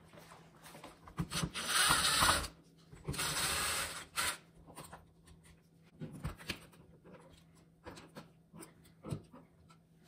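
Handling noise as an old wall light switch is unscrewed and pulled out of its electrical box: two noisy bursts of about a second each, then scattered light clicks and rubbing.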